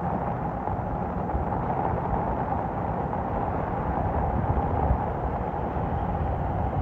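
Steady rushing noise of heavy rain outdoors, with a low rumble from wind buffeting the microphone.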